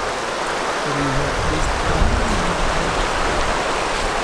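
Steady rush of a glacier-fed mountain river, with wind buffeting the microphone in a low, uneven rumble.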